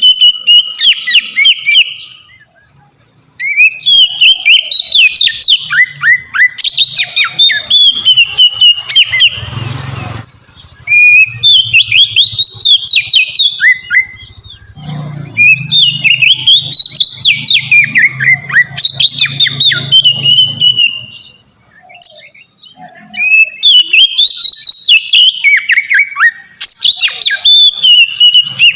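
Oriental magpie-robin (kacer) singing in full, open song (ngeplong): loud, rapid runs of varied whistled notes, in several bouts of a few seconds each with short pauses between.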